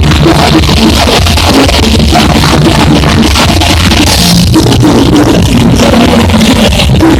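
Live rock band playing, loud and distorted, with heavy bass, guitars and a steady drum beat.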